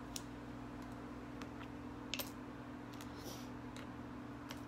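Small items dropped one at a time into a plastic bottle partly filled with rice, giving a few faint, scattered clicks and ticks over a steady low hum.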